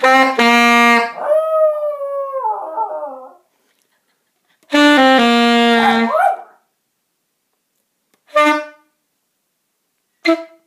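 A badly played saxophone blows short runs of stepping-down notes twice, and a Yorkshire terrier answers each run with a howl that wavers and falls in pitch. Two short blasts follow later on.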